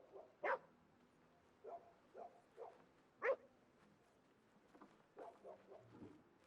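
Faint short dog barks, about a dozen in uneven clusters, the loudest two about half a second and three seconds in.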